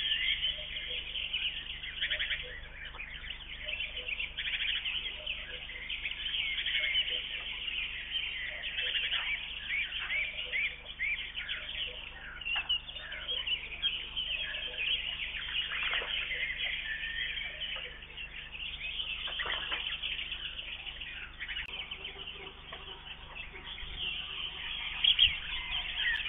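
A chorus of many songbirds singing at once: dense, overlapping chirps and trills that go on without a break.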